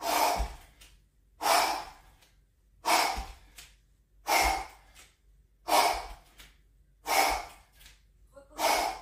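A man breathing out hard and forcefully in a steady rhythm, seven breaths about a second and a half apart, one with each repetition of a kettlebell exercise.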